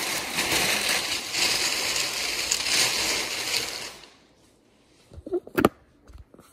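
Crinkly wrapping being rustled and handled, a dense crackling that stops about four seconds in. After that come a few short knocks, one louder than the rest.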